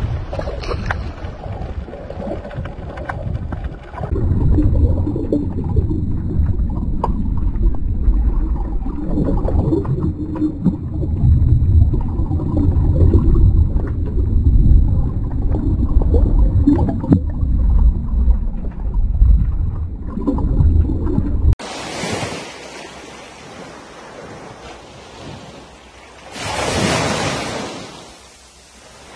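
Low rumbling water and wind noise, then an abrupt change to small waves washing onto a sandy shore, with one wave swelling in and fading near the end.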